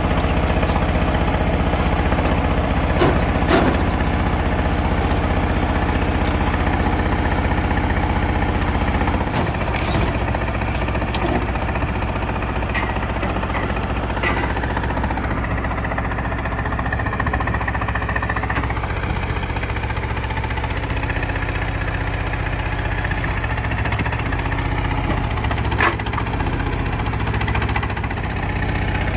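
Detroit Diesel 6V92TA two-stroke V6 turbo diesel of an FTF logging truck running steadily without revving. About a third of the way through, its tone becomes duller.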